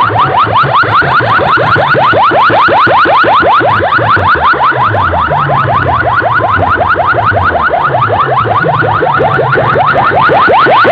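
A competition track played very loud through a DJ's 16-speaker sound box: a rapid string of rising, siren-like electronic chirps, several a second, over a stepping bass line.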